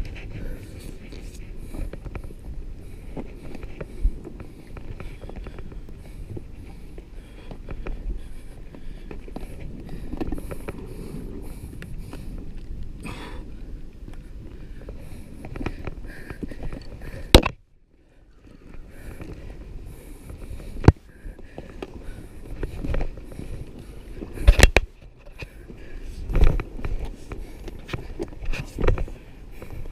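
Wind buffeting the microphone of a body-worn action camera, a steady low rumble with the sea washing below, broken by several sharp knocks and clicks from handling the camera and gear.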